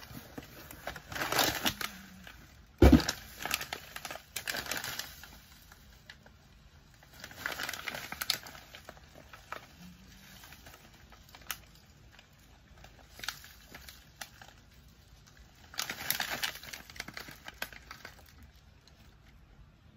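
A plastic noodle packet crinkling as it is handled and lifted from a cardboard box, in several separate bursts of rustling, with one loud thump about three seconds in and a few light clicks later.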